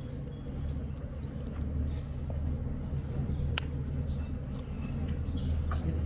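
A steady low mechanical hum, with a few light clicks and clinks scattered through it.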